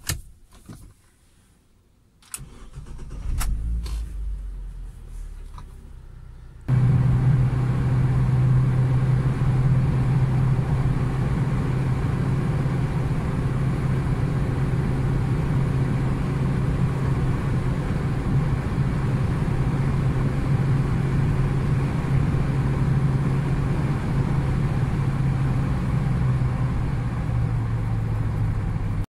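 A UAZ Patriot's ZMZ Pro petrol engine starts about two seconds in and runs at idle. A few seconds later the sound jumps suddenly to the louder, steady low drone of engine and tyres heard inside the cabin at highway speed.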